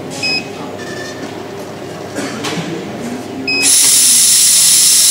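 Laser cutting machine: two short electronic beeps about three seconds apart. Then a loud steady hiss starts suddenly, fitting compressed assist air blowing from the cutting head's nozzle.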